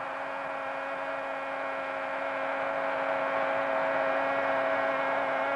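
A Brazilian football commentator's long held shout of "gol", one unbroken note at a steady pitch for over six seconds, calling a goal, with faint crowd noise beneath.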